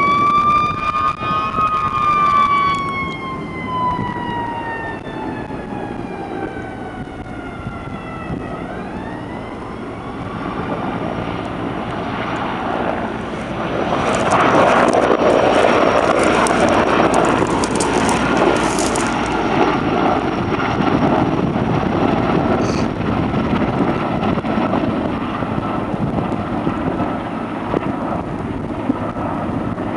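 An emergency-vehicle siren wailing, peaking early and falling slowly, then rising again about eight seconds in as it fades. After that, the steady noise of a firefighting helicopter overhead, loudest around the middle.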